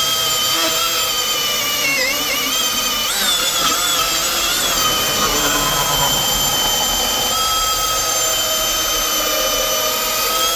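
Milwaukee M18 dual-battery cordless chainsaw running at full power with its stock .325 semi-chisel chain, cutting through hardwood: a steady, high electric-motor whine. The whine sags and wavers briefly about two and three seconds in as the chain loads up in the wood. It starts to wind down at the very end.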